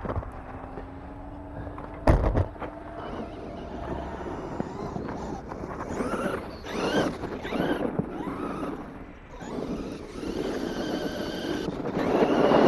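Traxxas Rustler RC truck's electric motor whining, rising and falling in pitch as it is throttled, with its tires spinning in snow. A sharp knock about two seconds in, and a loud surge of motor and tire noise near the end.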